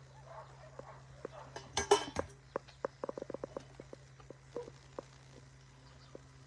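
Footsteps crunching on gravel, with a loud burst of crunching and clatter about two seconds in, followed by a quick run of small sharp clicks and a few scattered ticks.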